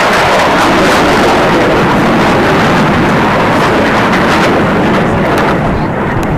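Several racing aircraft passing low around the course: loud, steady engine noise that begins to fade about five seconds in.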